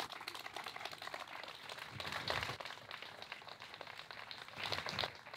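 Audience applauding, a dense patter of many hands that swells about two seconds in and again near the end.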